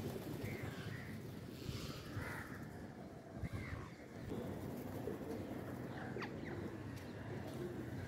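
Birds calling from a feeding flock: scattered short calls over steady low background noise.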